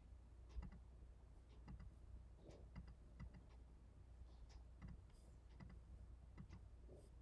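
Near silence: faint, irregular clicks of computer keys and mouse buttons over a low steady hum.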